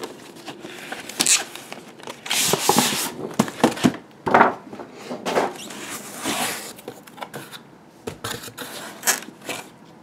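A cardboard box being unpacked by hand, with irregular scraping, sliding and rubbing of cardboard as it is handled and its lid opened.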